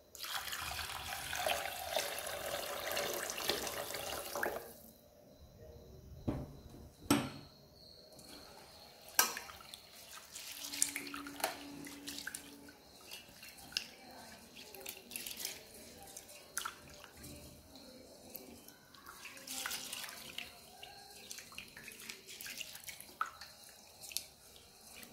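Water poured from a jug onto rice in a stainless steel bowl for about five seconds, then a hand swishing and rubbing the rice in the water to wash it, with splashes and occasional sharp knocks.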